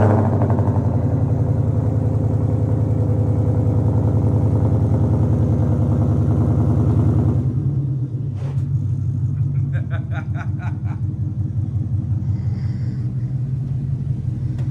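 Lexus IS F's 5.0-litre V8 idling through its quad exhausts just after being started, holding a raised idle and then settling to a lower idle about halfway through. In the second half come a single click and a quick run of light clicks.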